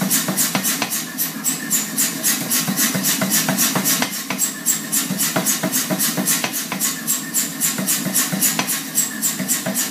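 Power hammer pounding quarter-inch round steel stock in a fast, even rhythm of about five blows a second, with its motor running underneath.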